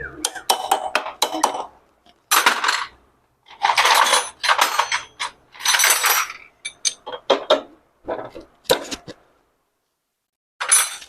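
Metal tools and engine parts clinking and clattering in irregular bursts, with short pauses between, as they are handled during motorcycle engine work.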